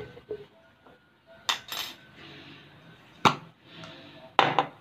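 Bottles and a can being put down and picked up on a hard tabletop: about five sharp knocks and clacks, some in quick pairs, the loudest a little past three seconds in and near the end.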